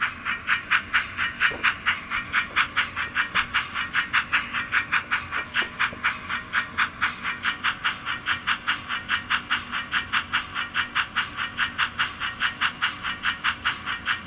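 Steam locomotive exhaust chuffing from a DCC sound decoder: an even, steady beat of about five chuffs a second with a hiss on each. The decoder is running on track power while its stay-alive charges.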